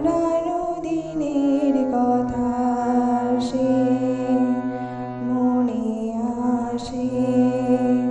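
Harmonium playing a melody in held, stepping notes over a steady low drone, as in the instrumental passage of a Bengali song. Two short sharp strikes fall about three seconds apart.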